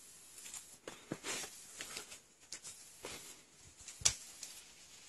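A climber's hands and rubber-soled climbing shoes scuffing, scraping and tapping on the rock of a boulder problem, with a sharp slap or knock about four seconds in.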